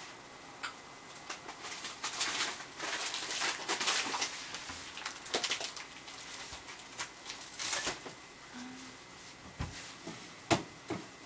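Intermittent rustling and light knocks of kitchen food preparation, heaviest in the first half, with a sharp click about ten and a half seconds in.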